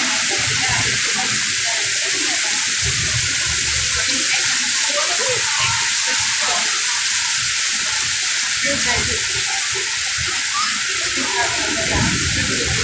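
Heavy rain falling on wet pavement and street: a loud, steady hiss.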